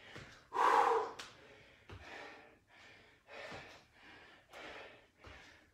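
A man breathing hard through exertion in a string of short, sharp exhales, about one every two-thirds of a second, the first one loudest and partly voiced.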